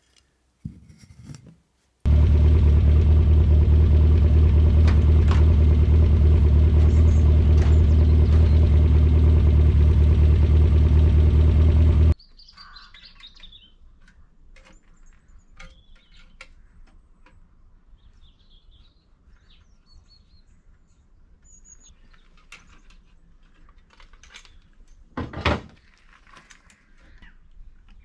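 Reliant 850cc four-cylinder engine running steadily for about ten seconds, then cutting off abruptly. Birds chirp afterwards, with one short louder sound near the end.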